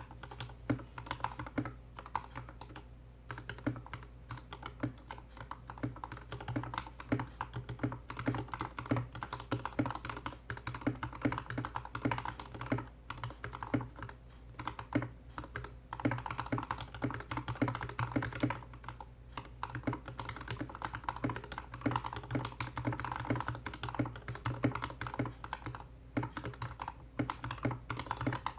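Slow typing on a GK61X mechanical keyboard with lubed Gateron Red Ink V2 linear switches, DSA profile keycaps, a stainless steel plate and a plastic case. The keystrokes come as a steady run of short clacks, several a second.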